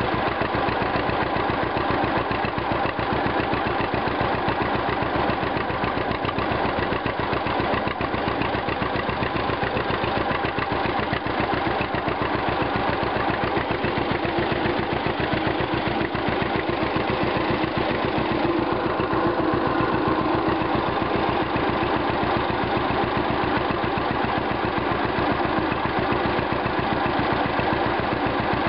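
1951 John Deere Model A's two-cylinder engine running steadily while the tractor drives along, its exhaust beating in an even, regular rhythm.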